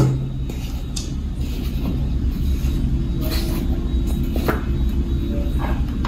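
Steady low rumble of background noise, with a few faint clicks and taps as the cap of a small oil bottle is twisted open and handled.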